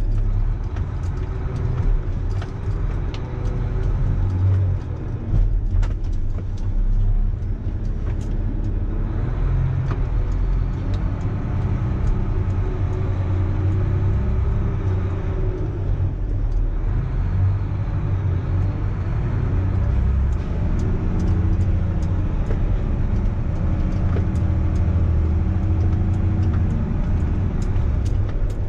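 Volvo L250F wheel loader's diesel engine running steadily as the machine drives, heard from inside the cab, its pitch rising and falling slightly, with scattered light clicks and rattles.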